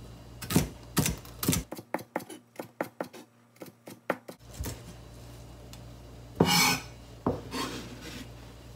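Chef's knife chopping mitsuba on a plastic cutting board: a quick run of sharp knocks, about four a second, for the first four seconds or so. Later the blade scrapes across the board, twice, gathering the cut herb onto a plate.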